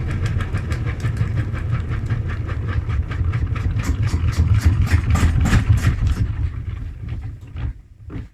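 Front-loading washing machine spinning a badly unbalanced load: a low rumble with rhythmic knocking of the drum, about four to five knocks a second. The knocking grows louder, then dies away in the last two seconds as the spin slows, and it stops near the end.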